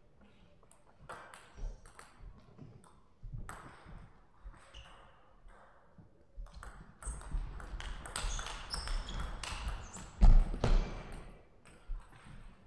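Table tennis ball clicking off rackets and the table: a few scattered bounces at first, then a fast rally in the second half, with a louder thump about ten seconds in.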